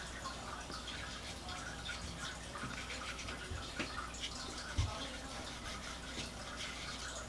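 Paintbrush strokes on watercolour paper: repeated soft scratchy brushing and dabbing, over a low steady hum, with a soft thump about five seconds in.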